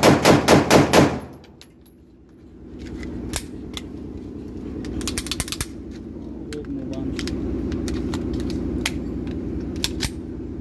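A 30 bore pistol firing rapid single shots, about four a second, ending about a second in. After a pause come scattered metallic clicks and rattles over a steady low hum.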